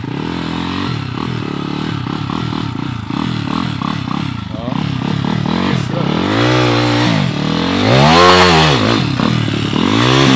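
MRF pit bike's single-cylinder four-stroke engine revving in quick, repeated throttle blips as it works up a steep sandy slope. It then goes into several long revs that rise and fall, growing louder as the bike comes close, with the loudest about eight seconds in.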